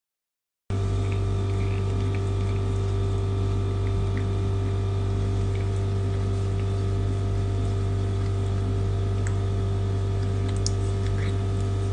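A steady hum with several constant pitches, starting abruptly after a brief silence, with a few faint ticks near the end.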